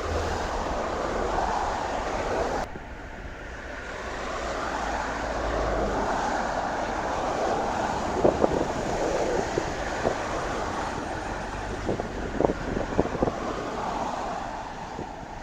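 Wind rushing and buffeting the microphone outdoors, a steady roar with low rumble. It drops suddenly about three seconds in, and short crackles from gusts hitting the microphone come in the second half.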